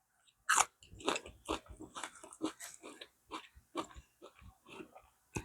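A person chewing crunchy food close to the microphone: irregular crunches, a few a second, with a sharper crunch about half a second in.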